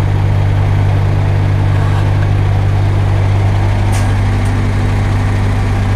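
Heavy truck diesel engine idling with a loud, steady low drone, and a brief click about four seconds in.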